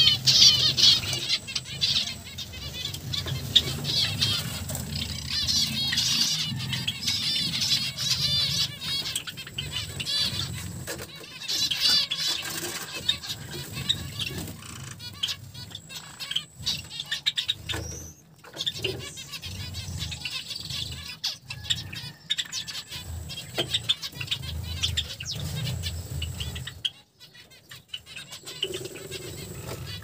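Many small cage finches chirping in quick repeated runs, thickest in the first half, over a low rustling.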